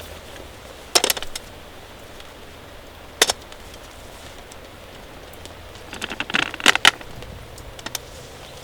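Sharp metallic clinks and short rattles of handled objects, one burst about a second in, a single click near three seconds, then a denser cluster around six to seven seconds. Beneath them runs a steady hiss of rain.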